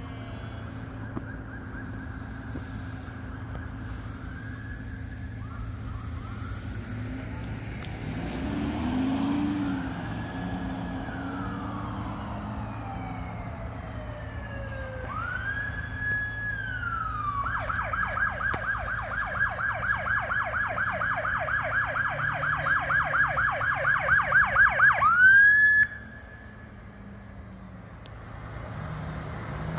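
Ambulance's electronic siren approaching: a slow rising-and-falling wail, switching a little past halfway to a fast yelp of about four sweeps a second that grows steadily louder, then one last rising sweep before the siren cuts off suddenly. A steady low hum of street traffic runs underneath, with a car passing early on.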